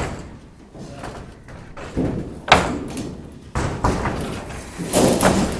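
Irregular heavy bangs and knocks of building construction work, about five over a few seconds, each with a short ringing tail.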